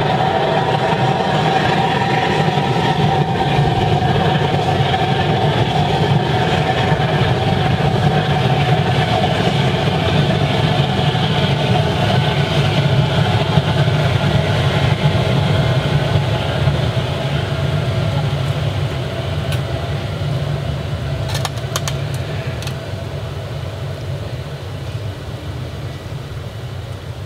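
Air-blown waste-oil burner firing into a steel drum furnace: a steady, loud roar with a whine running through it. In the last third it slowly dies down and gets quieter.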